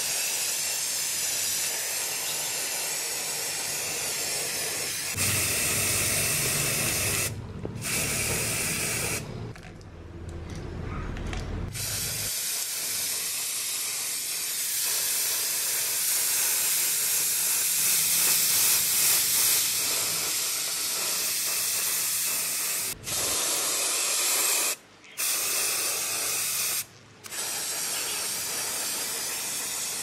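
Aerosol spray-paint can hissing in long bursts, with a few short breaks between them.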